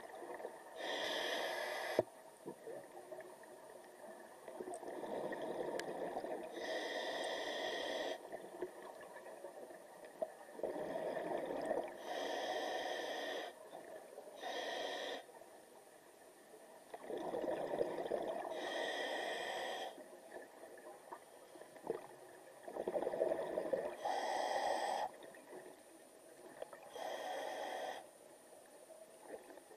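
Scuba diver breathing through a demand regulator underwater: a short hissing inhalation, then a longer rumble of exhaled bubbles, in a cycle that repeats every five or six seconds.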